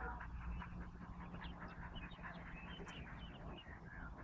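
Small birds chirping in the background, many short, quick calls. A faint low steady hum runs underneath for the first three seconds or so.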